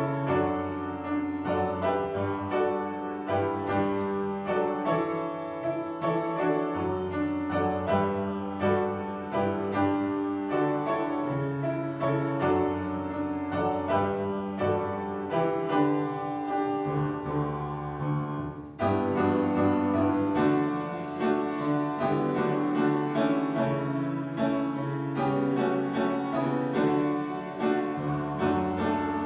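Piano playing a hymn tune in steady chords. The playing dips briefly about two-thirds of the way through, then comes back fuller and louder.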